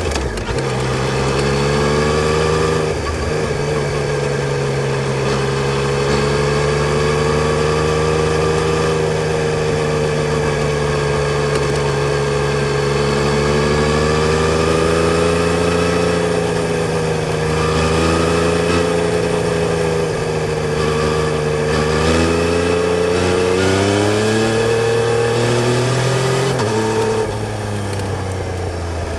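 Yamaha Tracer 900 GT's 847 cc three-cylinder engine running under way at a mostly steady speed, its note wavering gently. About three-quarters of the way through the revs climb, then they drop and the sound gets quieter near the end.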